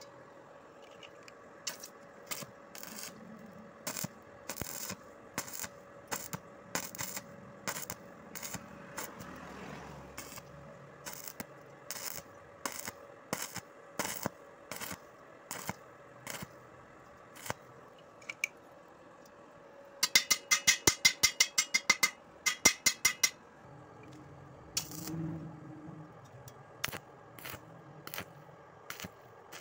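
Stick (arc) welding on a corner joint of square steel tube, the electrode striking the arc in short bursts: a string of sharp crackling pops. About two-thirds of the way through comes a fast, even run of loud pops, about seven a second.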